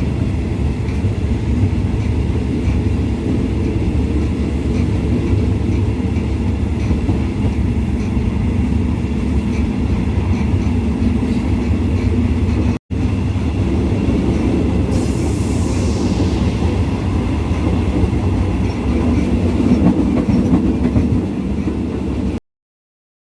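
Passenger train running along the track: a steady low rumble of wheels on rails. It drops out for an instant about 13 seconds in and stops abruptly near the end.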